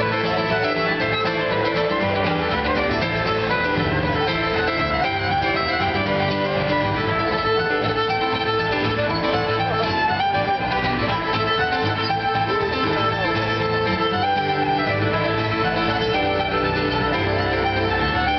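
Live fiddle tune with piano accompaniment: a bowed fiddle playing a lively melody over chords from an electric stage piano, continuous throughout.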